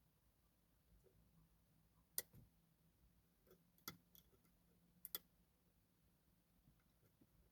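Faint, sparse metallic clicks from a pick and tensioner working the pins of a TESA T60 dimple lock: a sharp click about two seconds in, another near four seconds, and a quick double click about five seconds in.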